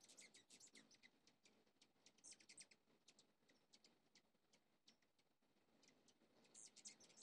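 Faint, high chip notes from several hummingbirds, coming in quick bursts: a cluster near the start, another about two seconds in, and a denser one near the end.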